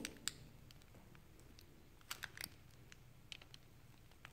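Faint handling noises from a piping bag being squeezed and moved while meringue is piped onto baking paper: a few light clicks and rustles, in a short cluster about two seconds in and again a little later, with quiet in between.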